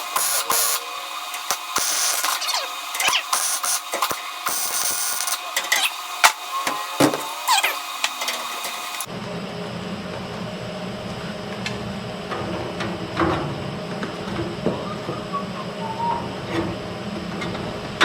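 A welder tacking sheet metal in several short bursts of crackling hiss. After an abrupt change about halfway through, a steady low hum with a few scattered knocks.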